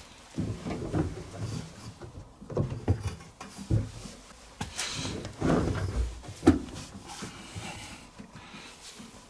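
Irregular clunks, knocks and rattles from the washing machine being handled by hand at its drum and door.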